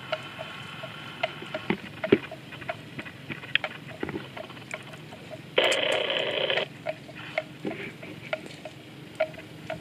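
Water buffalo grazing: a run of small sharp crunches and snaps a few times a second as grass and leaves are torn and chewed. A louder rushing noise about a second long comes a little past halfway.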